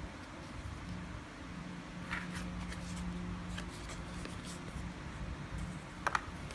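A few light clicks and rustles of small parts being handled, the sharpest near the end, over a low steady hum.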